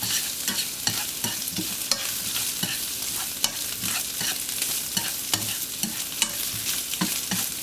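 Shiitake mushrooms and minced lemongrass sizzling in hot oil in a nonstick frying pan, stirred with chopsticks that click and scrape against the pan at irregular moments.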